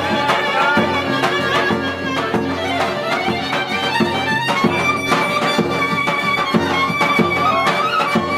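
Background music: a lively fiddle tune over a steady beat.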